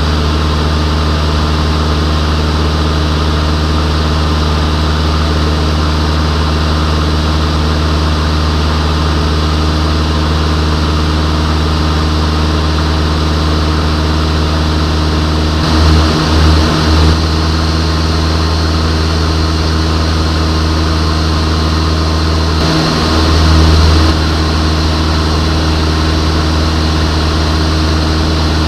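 Van's RV-6A light aircraft's piston engine and propeller droning steadily in cruise flight, heard from inside the cockpit. The low drone swells briefly a few times about two-thirds of the way through.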